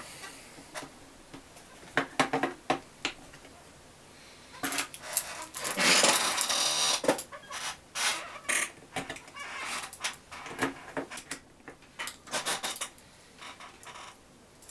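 Scattered clicks and taps of small tools and parts being handled on a soldering workbench, with a longer scraping rustle about five to seven seconds in.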